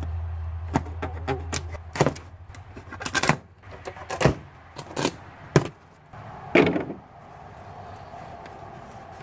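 Plastic packing straps being pulled off a cardboard box: a string of sharp snaps and knocks, with a longer crackling scrape near the end. A low steady hum stops about two seconds in.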